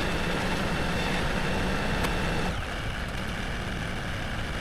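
Tractor engine running steadily, easing slightly about halfway through.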